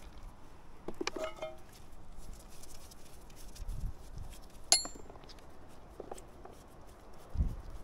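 Small metal parts of a sewer inspection camera clinking as they are handled and fitted. There is a ringing clink about a second in, a sharp click near the middle, and light handling ticks between.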